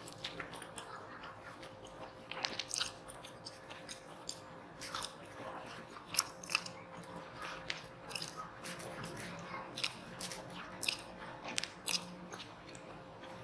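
Close-up eating sounds of a person slurping and chewing spicy instant noodles, made up of many short, sharp mouth clicks and smacks at an irregular pace.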